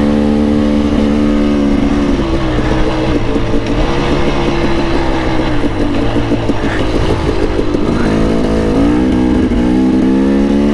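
2016 KTM 300 XC-W two-stroke dirt bike engine running under load while riding. It holds a steady note at first and falls off to an uneven, lower note about two seconds in. Near the end it revs up again and holds.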